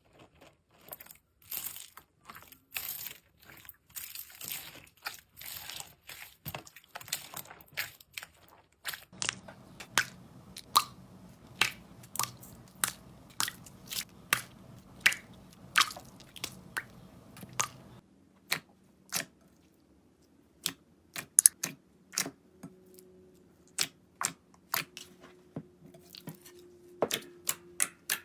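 Slime being squeezed and poked by hand: crunchy crackling for the first several seconds, then a long series of sharp, separate pops and clicks at uneven spacing.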